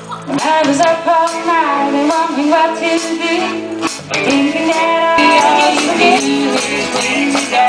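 Live country-rock band playing: a woman singing lead over guitars and drums, the music coming in louder just after the start.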